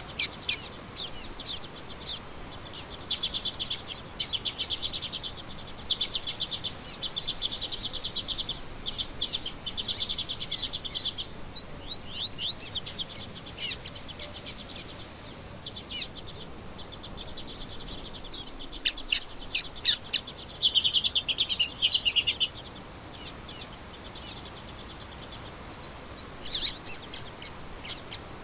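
Songbirds chirping and singing: many short, sharp high chirps, with fast trills about three seconds in and again past twenty seconds.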